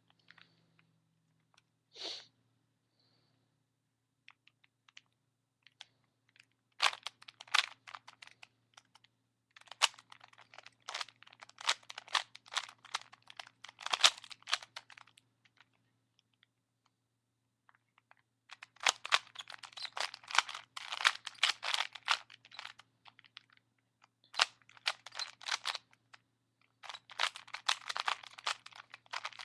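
Plastic Rubik's Cube being turned quickly by hand: rapid clicking and clacking of the layers, in bursts of a few seconds separated by short pauses.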